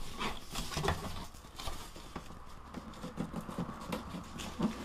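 Cardboard box flaps being pulled open by hand, with rustling and scraping cardboard and many small, irregular clicks as the metal staples holding the flaps give way.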